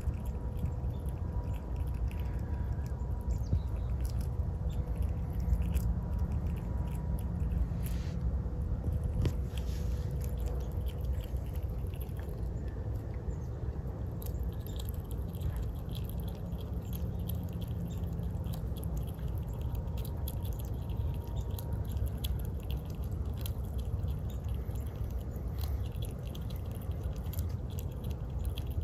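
Gray squirrel gnawing and chewing a walnut held in its forepaws: a long run of small irregular crunching clicks over a steady low background rumble.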